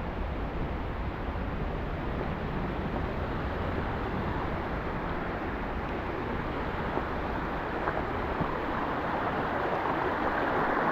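Steady rush of water, getting louder near the end.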